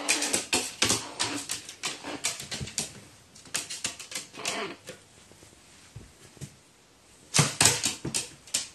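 A crow's claws clicking and tapping on a wooden floor as it hops and scrambles after a toy, in quick runs of taps: one run at the start, another around the middle, and a louder burst near the end.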